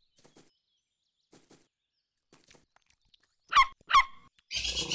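Cartoon animal sounds: a few faint soft clicks, then about three and a half seconds in two short high squeaks half a second apart, each falling in pitch, followed by a harsher, noisier cry.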